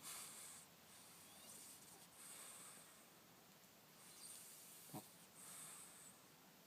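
A sleeping pet snoring faintly: slow, breathy snores about every two seconds, with one short, sharp snort about five seconds in.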